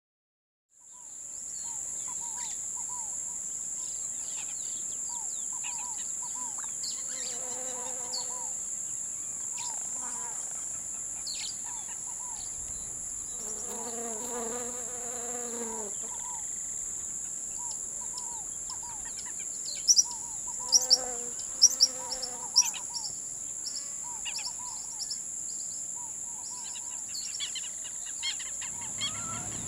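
Steady high-pitched drone of insects calling, with scattered bird chirps over it. A few sharp clicks come a little past the middle.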